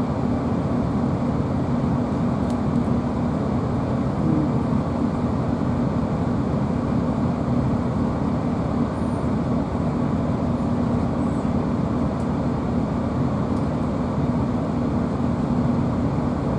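Steady running noise inside a GWR Class 165 diesel multiple unit under way: a constant drone from its underfloor diesel engine over the low rumble of wheels on rail.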